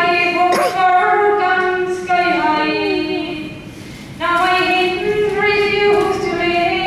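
A boy singing solo with no accompaniment, holding long notes, with a pause for breath about three seconds in before the next phrase.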